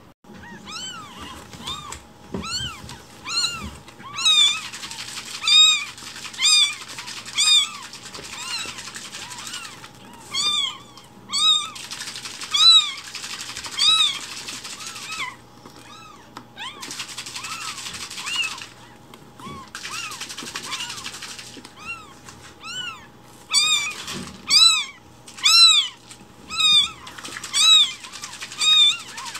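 Week-old newborn kittens meowing over and over: thin, high cries that rise and fall in pitch, roughly one a second, in runs broken by short pauses.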